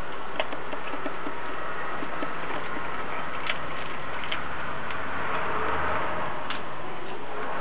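Australian cattle dog chewing and tearing at a whole raw rooster, its teeth cracking bone in a handful of sharp clicks over a steady hiss.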